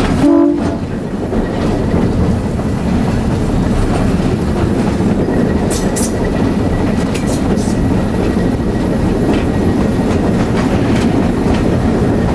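ALCO RSD-1 diesel locomotive rolling slowly, heard from its cab: a steady engine rumble with wheels clicking over the rail. A short tone sounds about half a second in.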